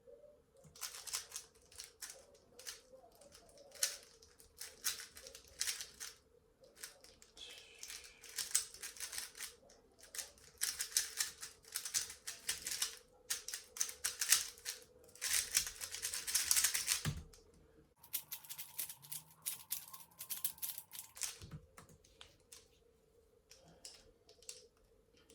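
A non-magnetic Mofang Jiaoshi MF3RS2 3x3 speedcube being turned fast in the hands, its plastic layers clicking in rapid runs. The clicking breaks off for a few seconds about 18 seconds in, then resumes more sparsely.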